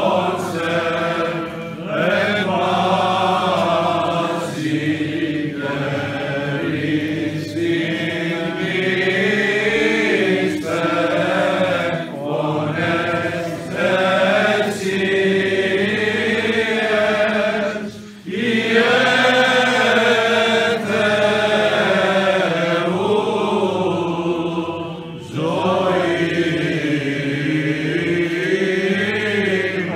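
Men's voices chanting a Greek Orthodox Byzantine hymn unaccompanied, the clergy and people singing together in long, held phrases with short breaks between them.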